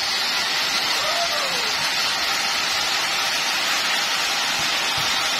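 Steady, even hiss that holds the same level throughout, with a faint falling glide about a second in.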